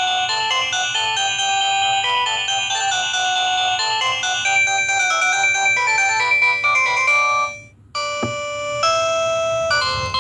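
LG SD2130 phone playing its built-in ringtones: one melody with several notes at once stops about seven and a half seconds in, and after a brief gap the next ringtone begins.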